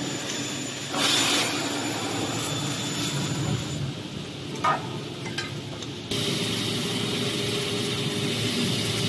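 CNC double-head aluminium profile cutting saw running, a steady machine hum with a brief burst of hiss about a second in and a short sharp sound near the middle.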